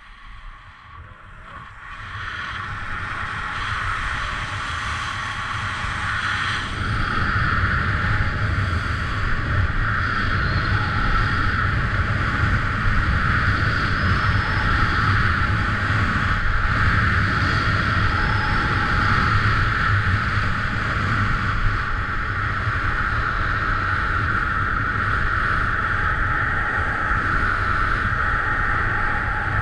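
Skis running fast down groomed snow, with wind rushing over the microphone. The sound is an even hiss and rumble that swells as speed builds, about two seconds in and again near seven seconds, then holds steady.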